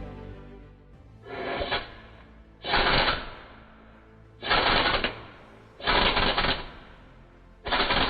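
Impact wrench hammering in five short bursts, about a second or less each, working to loosen a 17 mm bolt, with background music underneath.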